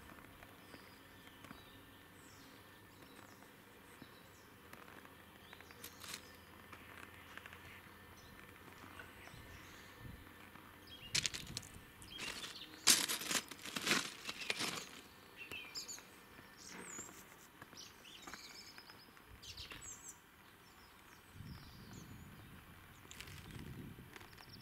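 Small birds chirping faintly now and then over a quiet outdoor background. About eleven seconds in, a few seconds of loud crackling and crunching close by.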